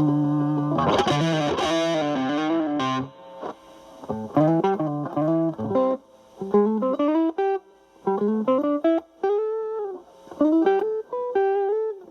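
Electric guitar, a Stratocaster through a Boss DS-2 Turbo Distortion in turbo mode into a Marshall Valvestate, ringing a distorted chord for about three seconds. It then cleans up into lighter-gain single-note blues phrases with string bends and short pauses between them.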